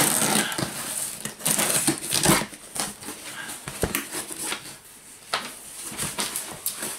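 Packing tape being peeled and torn off the top of a cardboard box, then the cardboard flaps folded open and crumpled packing paper rustling, in irregular crackling bursts.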